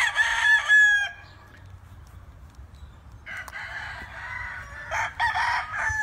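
Roosters crowing: one crow ends with a falling tail about a second in, and a second crow starts about three seconds in and runs on.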